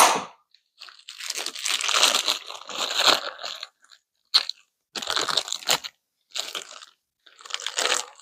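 Plastic packaging crinkling and crunching in irregular bursts as small bicycle headset parts are unwrapped by hand.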